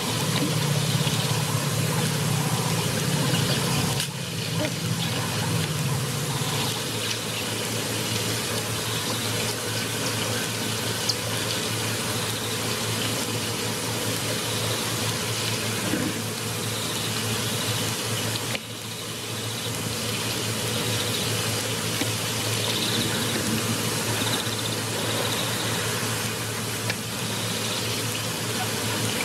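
Steady rush of water at a waterhole, with a low steady hum underneath that is a little stronger in the first several seconds.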